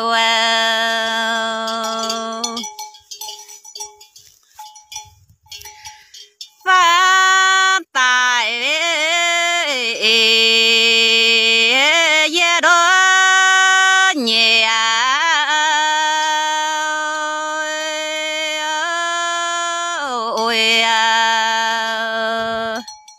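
Red Dao (Iu Mien) folk singing: one voice holds long drawn-out notes with sliding, wavering ornaments. It pauses for about four seconds near the start, where faint short clinks sound, then sings on until just before the end.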